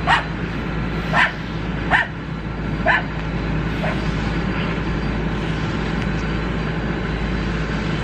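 A dog barking, five sharp barks about once a second in the first four seconds, the last ones fainter, then no more barks, over a steady background noise.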